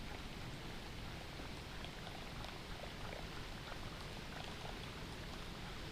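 Faint river water trickling and lapping around a kayak, with small drips and splashes and a steady low rumble underneath.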